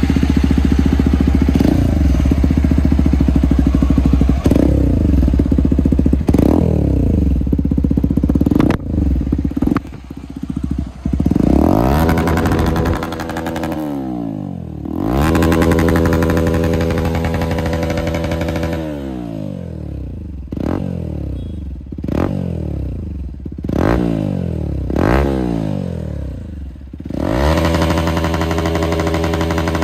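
Hero XPulse 200's single-cylinder engine running through an aftermarket Akrapovic slip-on exhaust. It idles and is revved again and again with short throttle blips, each dropping back to idle, with one longer rev about halfway through. It settles into a steady idle near the end.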